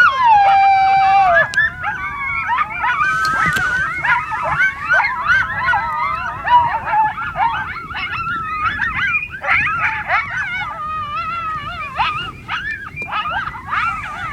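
Coyotes howling: a long howl drops in pitch and ends about a second and a half in, then a group of coyotes yips and howls over one another in a wavering chorus.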